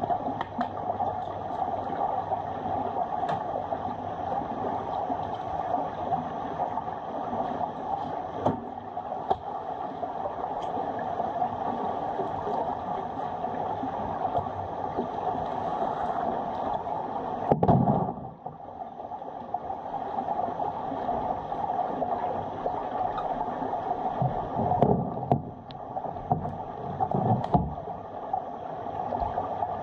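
Muffled underwater sound of a swimming pool picked up by a submerged camera: a steady rushing hum, broken by a few dull thumps, the loudest about two-thirds of the way through and two more near the end.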